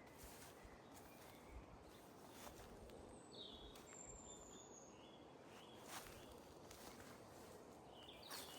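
Near silence: faint outdoor background hiss with a few brief high chirps around the middle and a couple of soft ticks.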